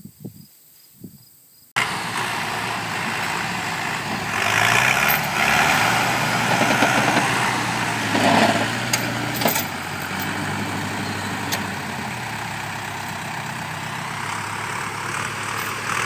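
Case backhoe loader's diesel engine starting abruptly about two seconds in, working harder and louder for several seconds as it pulls a stuck tractor out of the mud, then running steadier. A few sharp metallic clanks come near the middle.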